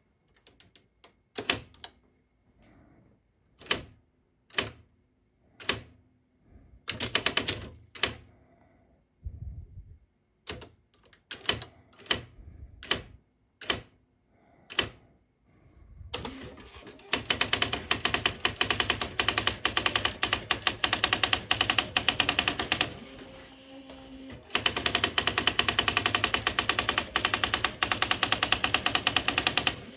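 Smith Corona SD 680 electronic typewriter printing: single sharp strikes and short pairs spaced a second or so apart, then, about halfway through, a fast unbroken run of strikes. The run breaks off for about a second and a half and then resumes.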